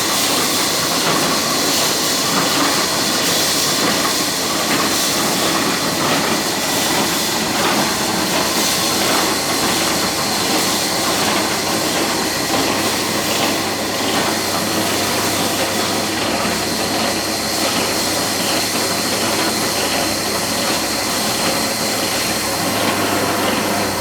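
Engine-driven sawmill machine running and cutting wood: a loud, steady, hissing machine noise, with a low hum that joins about halfway through.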